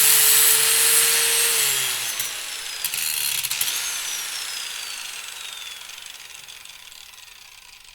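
Power cutting machine's motor winding down after a cut. Its steady whine and hiss drop in pitch about a second and a half in, then fade away gradually, with a high whine sliding downward.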